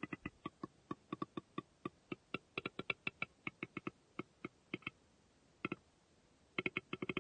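A run of short, low whitetail deer grunts, with uneven spacing and a pause about five seconds in. Near the end they pick up again in a fast, steady series, the rapid tending-grunt pattern of a rutting buck.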